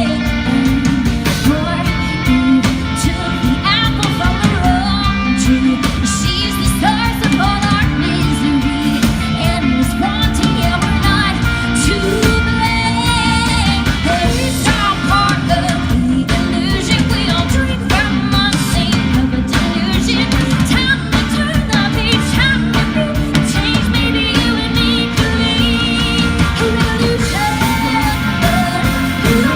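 Rock song played by a band, with a singer whose voice wavers in sustained notes over the steady, loud accompaniment.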